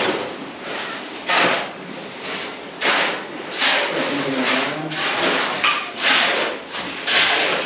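Shovels scraping through a gravel and concrete mix on a floor, spreading it, in repeated strokes about once a second.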